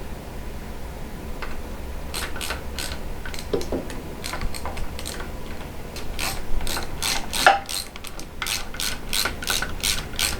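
Ratchet wrench being worked in quick repeated strokes, giving a run of rasping clicks about two to three a second from about two seconds in.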